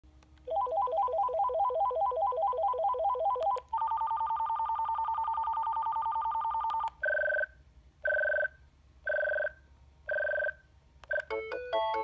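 Ringer tones of a Vtech CS6719-16 DECT 6.0 cordless phone handset played one after another as they are scrolled through. First comes a fast warbling two-note trill, then a steadier buzzing trill, then four short two-tone beeps about a second apart. Near the end a quick melodic ringtone tune begins, with brief clicks where the tones change.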